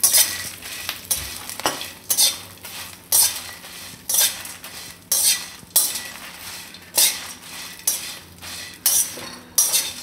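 A spatula scraping and stirring whole spices and dried red chillies around a metal kadai, a stroke about every second.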